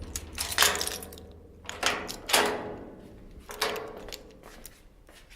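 Footsteps on a hard floor: a slow series of separate steps that grow fainter toward the end.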